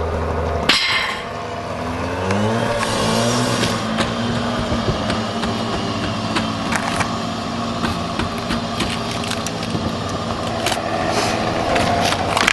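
A motor or engine rises in pitch about two seconds in and then runs steadily, under scattered short knocks and taps.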